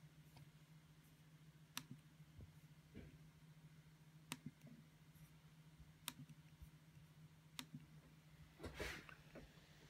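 Random clicking/popping from a 13-inch MacBook Pro: four sharp single clicks a few seconds apart over a faint steady hum, then a short rustle near the end. The owner traced the noise to heat plus metal-on-metal contact inside the case.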